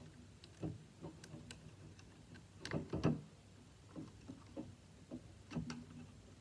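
Faint clicks and taps of a three-wire sensor cable and its plastic connector being handled and pushed into a port on a VEX V5 robot brain, with slightly louder clusters of knocks about three seconds in and near the end.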